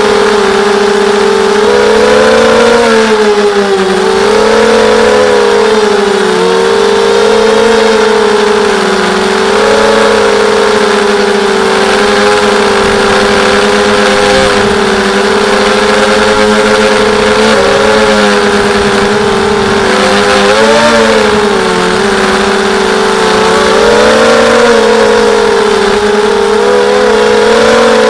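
Mini X260 quadcopter's brushless motors and Gemfan 5030 props whining steadily in flight, close up from the camera on the frame. The pitch swings up and down every few seconds as the throttle changes.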